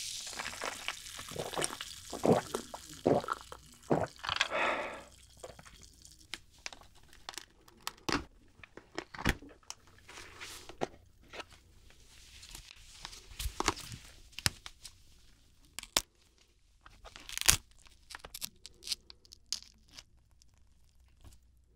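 Cooked king crab legs snapped and cracked apart by hand: sharp shell cracks and crunches with pauses between, the meat tearing as it is pulled out. Near the start come a few sips and swallows of iced water.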